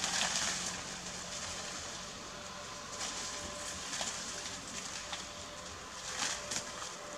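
Leaves and branches of a small tree rustling in a few short bursts as a young macaque climbs and swings in it, over a steady background hiss.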